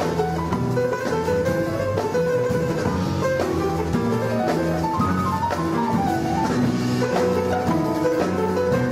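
Jazz quartet playing: a plucked Azerbaijani tar and double bass over piano and drum kit, in quick melodic runs.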